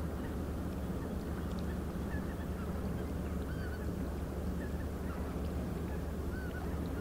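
Steady low drone of a passing inland river ship's diesel engine, with short honking calls of geese now and then.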